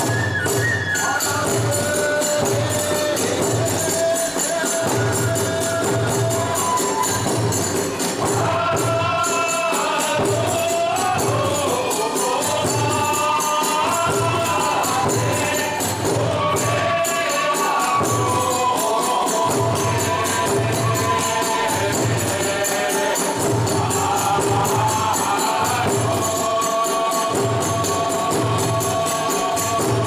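Iwami kagura accompaniment: a large drum beating a steady rhythm under continuous clashing of small hand cymbals, with a melody carried above.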